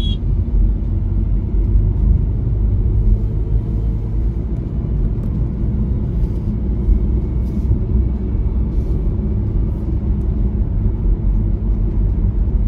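MG Hector SUV driving along an open road: a steady low rumble of engine and tyre noise that holds constant throughout.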